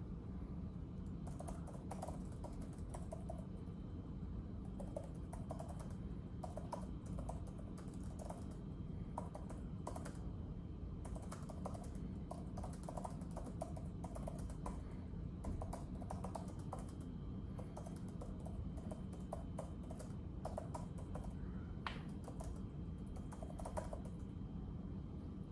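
Typing on an iPad keyboard: irregular keystroke clicks at a steady working pace, over a steady low background rumble.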